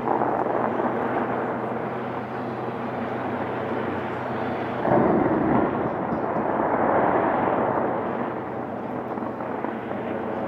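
Skyscraper fireworks display heard from a distance: a continuous rumble of bursting shells and crackle, with a sudden louder burst about five seconds in and another swell soon after, over a steady low hum.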